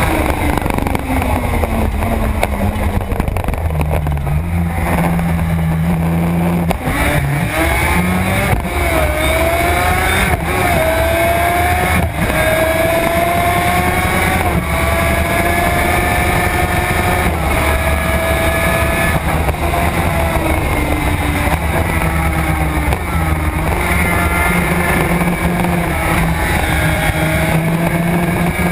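Suzuki RG500's two-stroke square-four engine heard from on board at racing speed, with wind noise over the microphone. The revs fall in the first few seconds, then climb through the gears in a series of rising pulls, hold high, and dip and rise again near the end.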